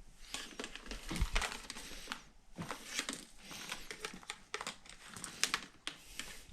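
Products being handled and set down together on a surface: irregular crinkling and rustling, clicks and a few knocks.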